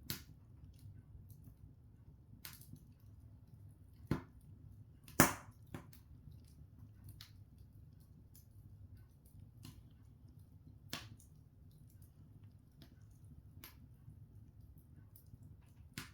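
Open wood fire crackling: scattered sharp pops and snaps of burning logs over a low steady rumble, the loudest pop about five seconds in.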